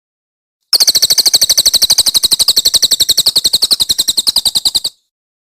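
A songbird's rapid, rattling trill of high notes, about a dozen a second, lasting about four seconds and cutting off abruptly.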